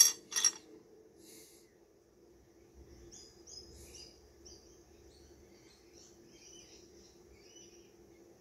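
Wet rough opal stones clinking sharply twice against each other and the bowl as one is picked out, with a fainter clink just after. Faint, short, high chirps follow over a low steady hum.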